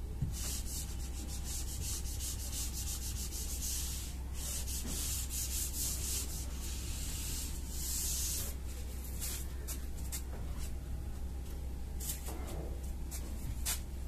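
A felt duster wiping marker writing off a whiteboard in repeated scrubbing strokes, over a steady low electrical hum.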